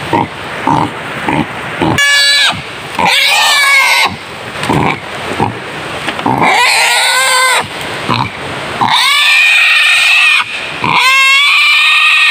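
A snared wild boar squealing loudly and repeatedly as it is restrained, with short grunts in the first couple of seconds. The calls are long and shrill, several in a row.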